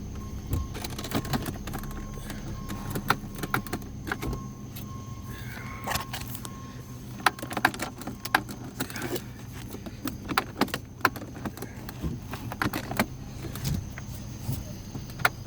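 Cabin sound of a Charger driving: a steady low engine and road drone, with many irregular sharp clicks and taps scattered through it.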